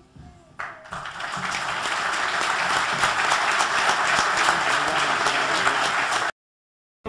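Audience applauding, starting about half a second in and quickly swelling to steady, loud applause, then cutting off suddenly about a second before the end.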